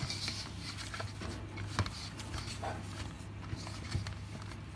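Hand kneading crumbly maize-flour dough in a steel bowl: a soft, steady squishing and scraping, with a few light knocks against the bowl, over a low hum.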